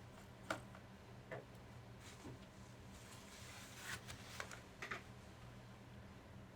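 Faint, scattered clicks and light scraping from hands working on an Asus K50IJ laptop during a memory and hard drive swap, over a low steady hum. There are about seven clicks in all, the sharpest about half a second in.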